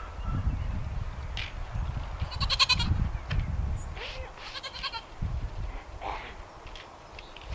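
Nigerian Dwarf goats bleating, two calls about two and a half and four and a half seconds in, over low rumbling noise.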